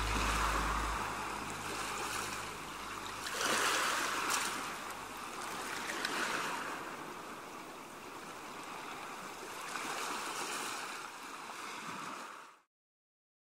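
Sea surf, waves washing in and drawing back, swelling every few seconds, then cutting off suddenly near the end.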